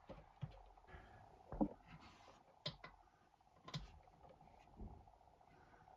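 Tools or parts being handled, giving a few sharp clicks and knocks about a second apart over a faint steady hum.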